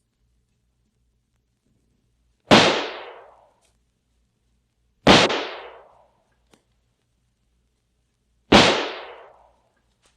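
Three M-1 rifle shots, each a sharp crack followed by about a second of fading echo, a few seconds apart. Played from a vinyl sound-effects record, with faint surface clicks and a low hum between the shots.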